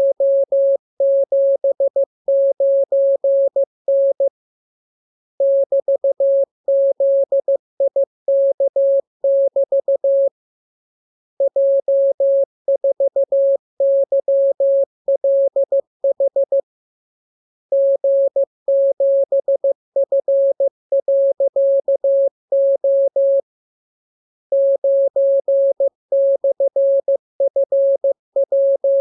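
Morse code (CW) sent as a single steady tone keyed into dots and dashes at an even pace. The characters come in runs of about five seconds, each followed by a pause of about a second.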